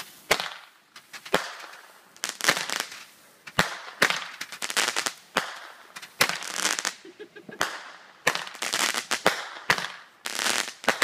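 Consumer ground fireworks going off: a rapid string of sharp bangs, about one or two a second, each trailed by a crackling hiss.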